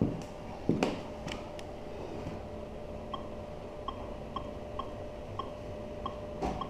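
Short electronic keypad beeps, one per key press, about every half second from about three seconds in, as keys are pressed on a portable radio service monitor. A faint steady hum runs under them, and a couple of handling knocks come in the first second.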